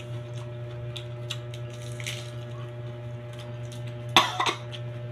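Raw napa cabbage leaves being torn and bitten: small crisp crackles and clicks over a steady low hum, with one louder, sudden burst of sound about four seconds in.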